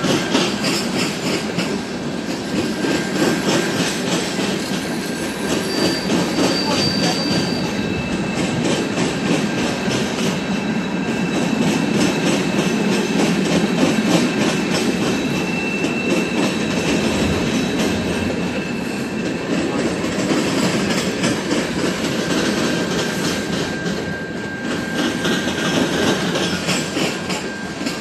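Freight cars of a long mixed train rolling past, steel wheels rumbling steadily and clicking over the rail joints. Thin high wheel squeals come and go, one high-pitched squeal about six seconds in and a lower one through the middle.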